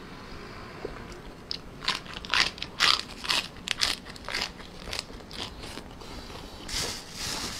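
A person eating spicy blood cockle salad close to the microphone, chewing and biting: a run of short, crisp, irregular crunches from about a second and a half in until about five and a half seconds, then softer mouth noise.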